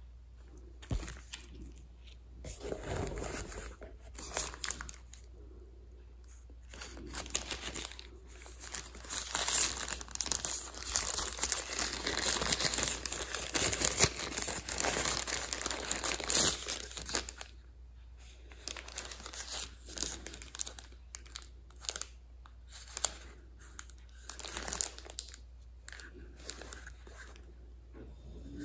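Packaging being handled and unwrapped: crinkling and rustling with tearing sounds, in irregular bursts, heaviest through the middle and thinning to scattered crackles near the end.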